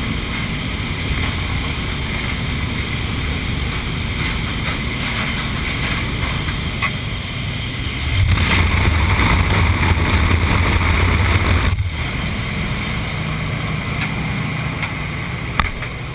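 Aircraft engine drone and wind rushing past the open jump door of a plane in flight. It grows louder about eight seconds in, then drops abruptly about four seconds later.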